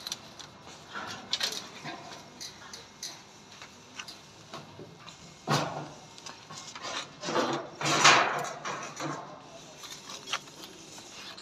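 Indistinct background voices with occasional light knocks and clatter, the loudest stretch about two-thirds of the way through.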